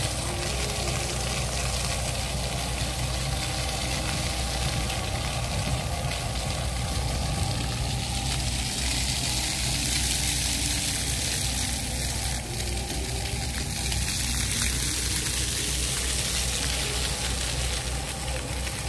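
Fountain water jets splashing onto paving: a steady, even hiss of falling spray.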